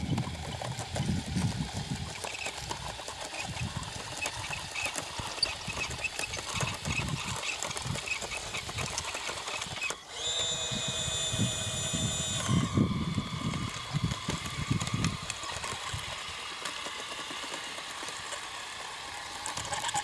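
Radio-controlled model tracked loader's electric drive motors and gearboxes whirring as it crawls over dirt, with a clearer high whine about halfway through, then a steadier lower tone for a couple of seconds.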